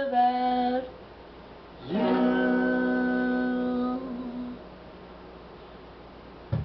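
A young man's voice hums the closing notes of a song: a short note at the start, then after a pause one long steady note of about two seconds that trails off. A brief knock near the end.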